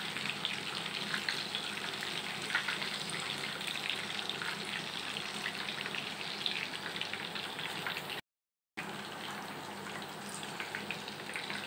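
Cornflour-coated chicken pieces deep-frying in hot oil in a kadai, a steady sizzle with many small crackles. The sound drops out briefly about eight seconds in.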